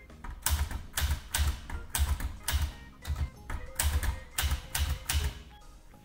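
Olivetti Lettera portable manual typewriter being typed on: about ten separate keystrokes at roughly two a second. Each stroke is a sharp clack of the typebar with a dull thud beneath it.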